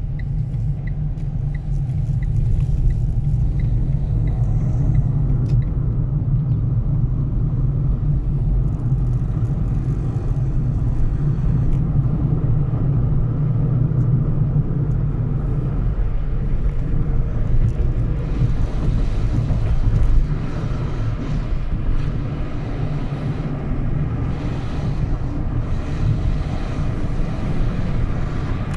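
Steady low rumble of a moving car, with a faint regular ticking over the first few seconds and a brief louder knock about twenty seconds in.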